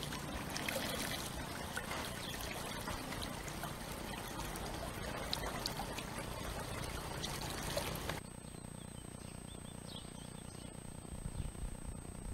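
Small shallow brook trickling and splashing over clumps of grass, a steady watery rush. About eight seconds in it drops abruptly to a much fainter background.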